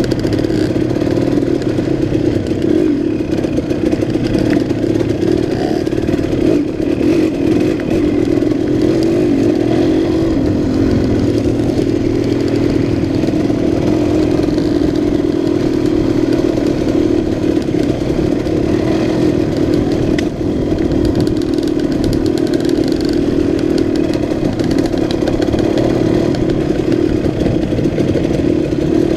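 The two-stroke single-cylinder engine of a 2006 KTM 200 XC-W enduro bike, running at a steady, fairly constant speed while the bike is ridden over a gravel trail.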